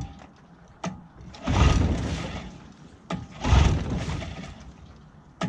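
A 15 hp Johnson outboard motor being pull-started with its recoil cord, two hard pulls each turning the engine over and whirring down over about a second without the engine firing.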